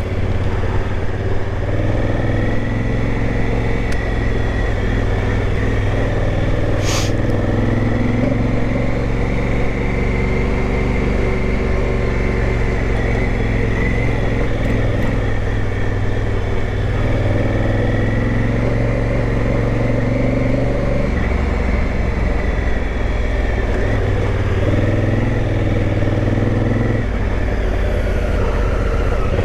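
Big adventure motorcycle's engine running under way, its pitch rising and falling as the throttle is worked, with a sharp knock about seven seconds in.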